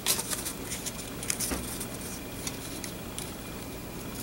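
Paper and small craft tools being handled: a few scattered light clicks and rustles over a faint steady hum.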